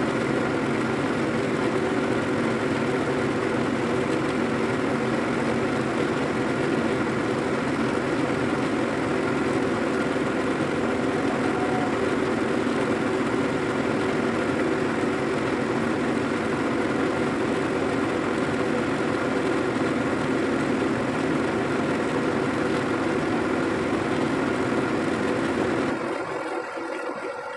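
Heavy diesel truck engine idling steadily. The sound cuts away sharply near the end.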